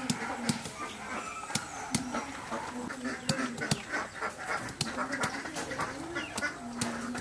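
Birds and farmyard animals calling, with a low wavering call that comes and goes, quick repeated chirps near the middle, and scattered sharp clicks.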